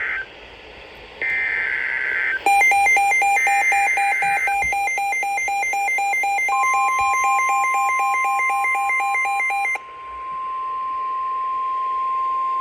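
Emergency Alert System SAME header data bursts, three short warbling bursts about a second apart. A harsh electronic alarm beeps rapidly, about four times a second, from about two and a half seconds in until nearly ten seconds. About halfway through, the steady 1050 Hz NOAA Weather Radio warning alarm tone comes in and holds to the end.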